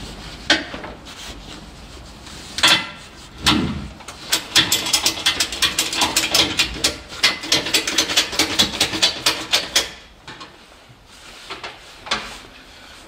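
A few sharp metal knocks, then a run of rapid clicking at about six a second for some six seconds, from a ratchet spanner tightening the bolts of a seat being mounted in a stripped car shell.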